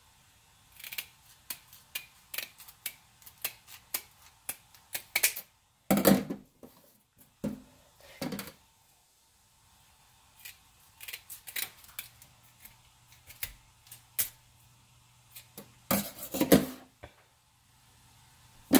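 Kitchen scissors snipping through the spiny dorsal fin of a whole red snapper: a long run of short, sharp snips, irregularly spaced, with a couple of louder bumps of the fish being handled, about six seconds in and again near the end.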